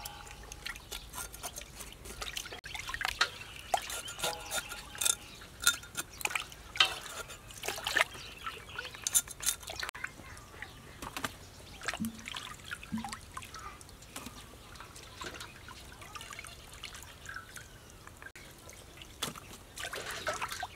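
Water splashing and dripping in a steel basin as whole fish are handled and scraped with a knife, in irregular short splashes and drips.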